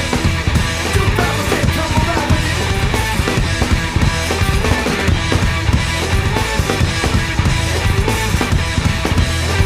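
Heavy rock song played loudly by a band of electric guitar, bass guitar and drum kit, with dense, even drum hits.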